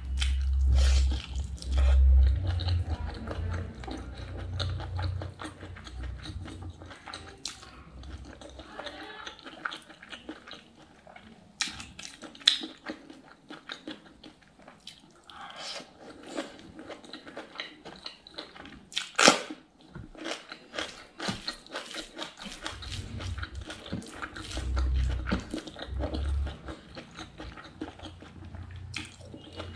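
Close-miked eating: chewing and biting of rice and pork innards curry eaten by hand, with wet mouth sounds and many small clicks. Deep low thuds come near the start and again about three-quarters of the way in, and a few sharper cracks stand out in between.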